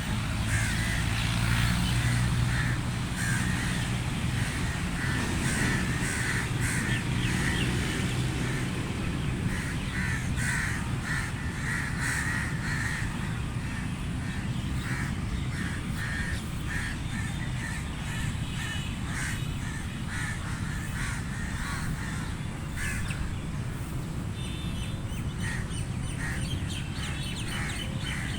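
Crows cawing, short harsh calls repeated many times, over steady outdoor background noise. A low steady hum sits under the calls for the first several seconds.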